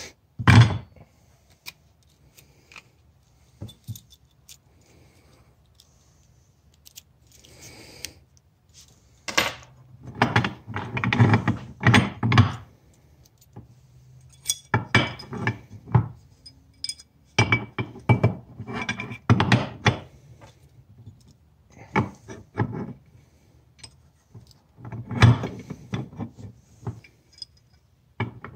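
Clinking, clicking and tapping of metal tools and motorcycle drum-brake parts being handled and fitted. The clinks come in irregular clusters of quick strikes with short pauses between them.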